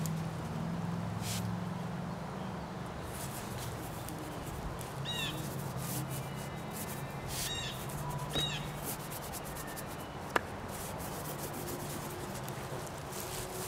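A paintbrush rubbing paint onto a large painting board, with three short high calls in the background near the middle and one sharp click about ten seconds in.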